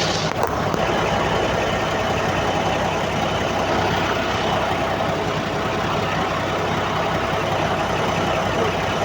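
Heavy diesel engine of a Komatsu D85ESS bulldozer running steadily, with a short knock right at the start.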